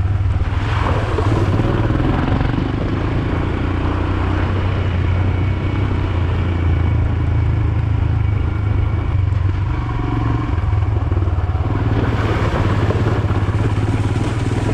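Royal Enfield Himalayan's single-cylinder engine running steadily under way, with tyre and road noise over wet gravel and stones.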